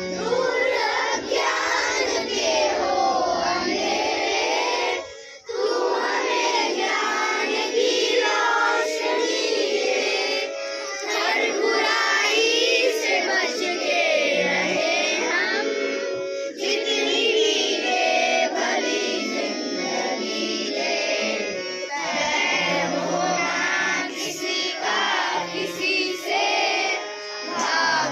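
A song sung by children's voices over instrumental music, with a brief pause about five seconds in.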